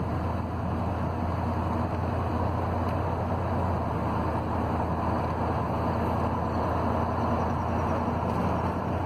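Steady road and engine noise of a car driving at a constant speed, heard from inside the cabin, with a low hum under a smooth rush.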